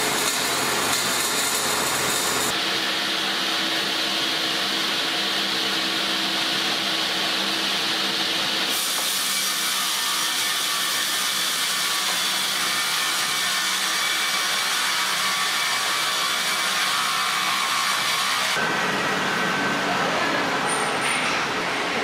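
Sawmill machinery running with a steady mechanical noise that changes abruptly three times, about 2.5, 9 and 18.5 seconds in.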